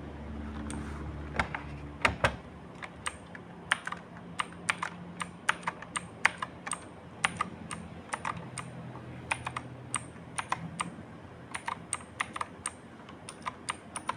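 Typing on a MECCAIR S wireless mechanical gaming keyboard with clicky Outemu Blue switches: irregular sharp key clicks, a few a second.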